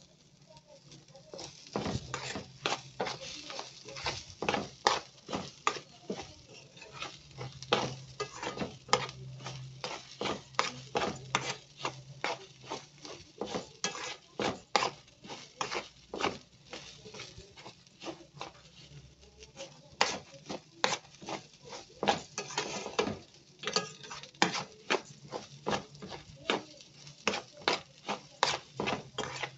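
A metal spoon stirring dry raw rice in a metal pot, each stroke a short scrape of spoon on pot with the grains rustling, repeated quickly throughout.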